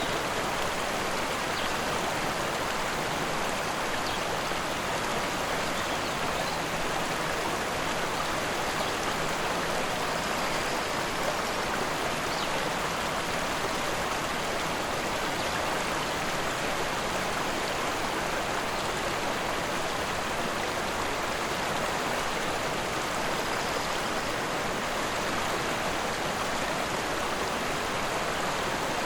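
Rushing river: a steady, even rush of flowing water.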